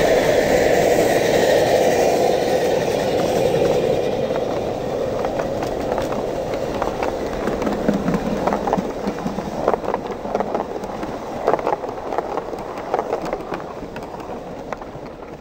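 Live-steam 16 mm-scale garden railway locomotives passing close, their steam exhaust hissing, followed by the carriages rolling past with irregular clicks of wheels over the track. The whole train fades away toward the end.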